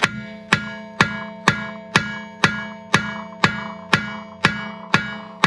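Background music with a steady, evenly spaced knocking beat, about two strikes a second, over held tones.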